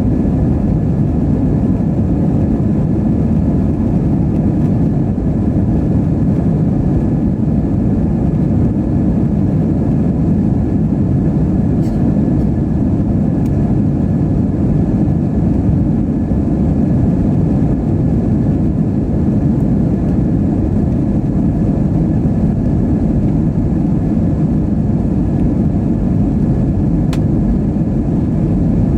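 Steady cabin noise of an Airbus A320-232 in flight: its IAE V2500 jet engines and the airflow give a loud, even rumble with a faint steady whine above it.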